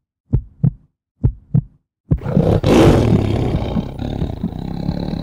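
A heartbeat sound effect, three double thumps about a second apart, then about two seconds in a sudden loud roar that swells and slowly dies away.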